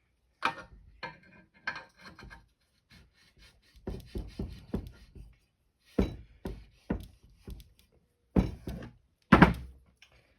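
Metal gearbox parts being handled on a bench: irregular sharp knocks and clatter in several clusters, including a quick run of light knocks midway and the loudest knocks near the end.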